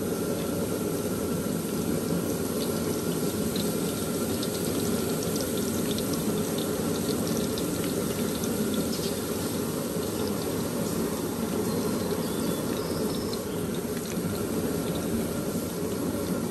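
Chopped garlic deep-frying in hot vegetable oil: a steady bubbling sizzle with scattered small crackles and pops.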